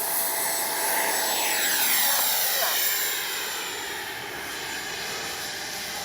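Electric ducted fan of an FMS Integral 80mm jet (12-blade fan on a 2000 KV in-runner motor) whining at high power as the model takes off and passes by. The whine grows loudest about two seconds in, its pitch sweeps down as the jet goes past, then it carries on steadier and quieter.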